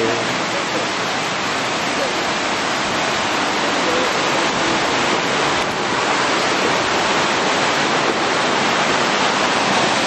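Urami Falls waterfall: a steady, even rush of falling water.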